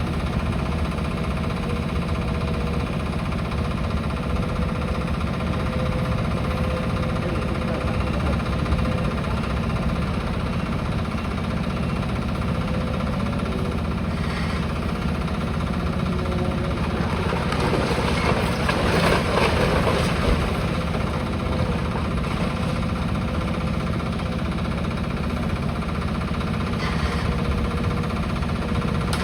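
Demolition machine's engine running steadily while it breaks up a house, with a louder crunch of breaking masonry and debris for a few seconds about two-thirds of the way through.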